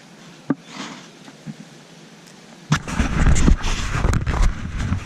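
Rubbing, knocking and deep rumbling right on a chest-mounted GoPro's microphone as the wearer moves, starting suddenly about two and a half seconds in after a quiet stretch with one sharp click.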